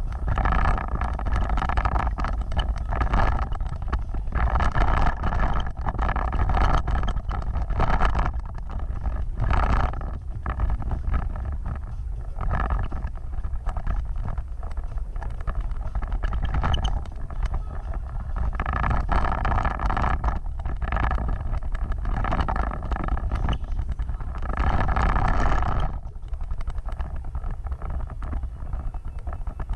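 Off-road vehicle on the move: a constant heavy low rumble, with the engine sound swelling and fading every second or two.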